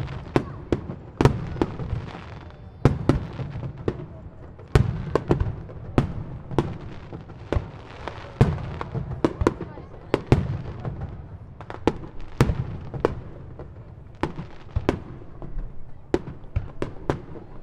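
Aerial firework shells bursting in a dense barrage: sharp bangs at irregular spacing, often several a second, over a continuous low rumble.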